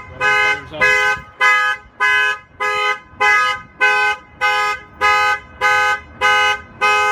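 Avital 3100 alarm going off on a 2015 Freightliner truck after being armed and tripped. It sounds as loud short blasts of unchanging pitch, about two a second, repeating evenly.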